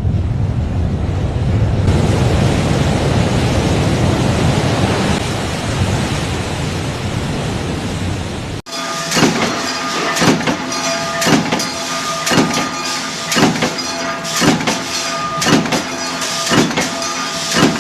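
Factory machinery running: first a steady rumbling din, then, after a sudden change, a machine striking about once a second over a steady hum.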